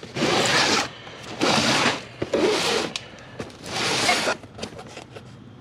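A cardboard shipping box being slid and turned on a tabletop: four rasping scrapes of about half a second each, then a few light knocks near the end.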